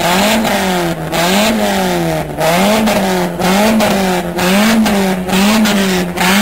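Tuned Peugeot's engine and exhaust being revved over and over while the car stands still. The pitch rises and falls about once a second, six or seven times in a row.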